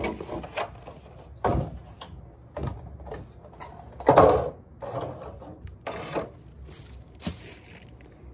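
Large molded clown shoes of a Halloween animatronic being handled and set onto metal support poles: a string of separate knocks, clunks and rubs, the loudest about four seconds in.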